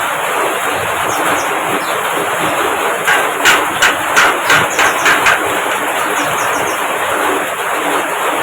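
Javan myna (jalak kebo) calling with a harsh, rasping chatter, broken between about three and five seconds in by a run of about seven sharp clicking notes. This is lure audio used to get a silent or reluctant jalak kebo to answer.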